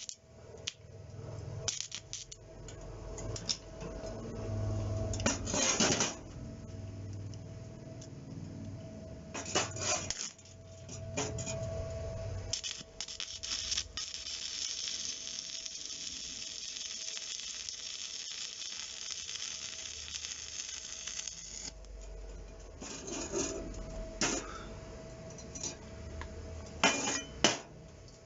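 Stick (arc) welding with a coated electrode rod. The arc crackles and hisses in several short runs in the first half, then burns steadily for about ten seconds before cutting off. Sharp metal clinks come near the end.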